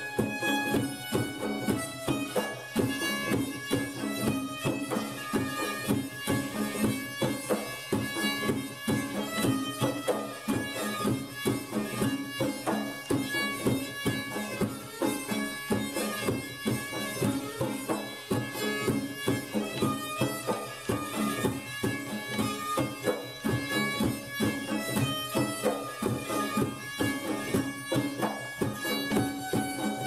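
Instrumental traditional folk-style music with a steady beat under a sustained melody line.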